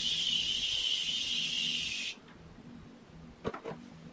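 A steady high hiss of pressurised gas escaping, which cuts off abruptly about two seconds in. A few faint clicks follow.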